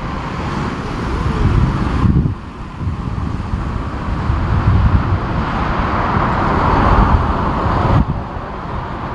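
Jet airliner engines roaring on approach, swelling to their loudest about seven seconds in, under strong gusty wind buffeting the microphone. The sound changes abruptly twice, at about two and eight seconds in.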